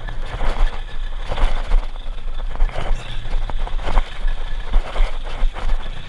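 Outboard motor running steadily at trolling speed, with water rushing and slapping along the hull.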